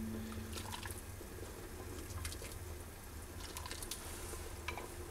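Chickpea soup being ladled from a pot and poured into a ceramic bowl: soft liquid splashing and dripping, with a few light clicks of the ladle against the bowl.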